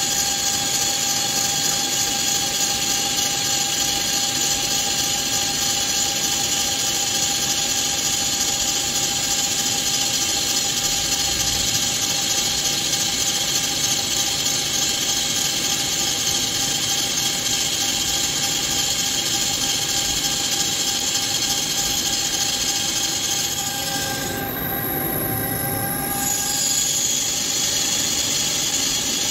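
Hankook CNC lathe turning a ductile iron roll: the insert cutting steadily, a high-pitched whine with several steady tones over the machine's running noise. Near the end the high whine drops away for about two seconds, then the cut resumes.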